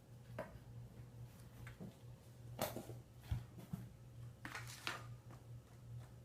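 Young kittens scampering and wrestling: scattered light taps, scratches and scrapes of small paws and claws, the loudest bunches about two and a half seconds in and again around four and a half seconds, over a steady low hum.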